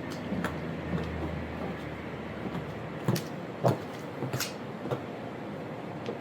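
Footsteps in high-heeled platform shoes on hard ground: a series of sharp, uneven heel clicks, the loudest a few seconds in, over a steady background noise.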